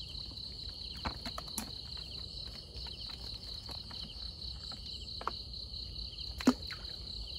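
Steady, pulsing chorus of night insects trilling, with a few light knocks as things are handled over a plastic bucket, the sharpest about six and a half seconds in.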